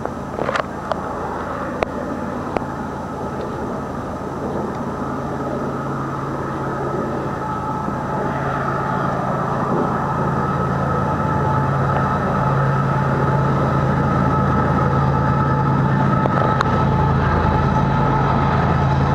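A GE ES44AC diesel locomotive approaching with a long freight train, its engine drone growing steadily louder over the last half. A few sharp clicks in the first few seconds.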